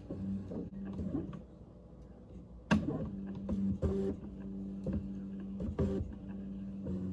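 Stepper motors of a homemade CNC machine driving its axes, a steady motor hum that starts, stops and changes pitch from move to move, with a few sharp clicks, the loudest about three seconds in.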